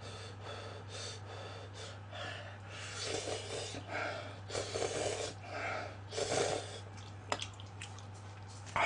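Cup-ramen noodles being slurped from chopsticks: a run of short, airy slurps between about three and six and a half seconds in, with a sharp click a little later. A steady low hum sits underneath.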